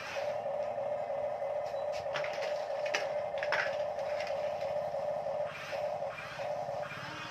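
Plastic toy trucks and cars clicking and knocking on a wooden floor as they are moved by hand, over a steady mid-pitched drone.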